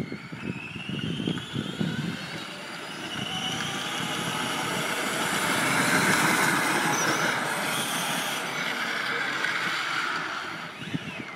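Ride-on toy car converted to twin Turnigy 540 brushless motors on 3-cell LiPo packs, driving on asphalt: a high motor whine that climbs in pitch over the first few seconds, over a steady rolling rush from its hard plastic wheels. It is loudest as the car passes close, about six seconds in, then fades.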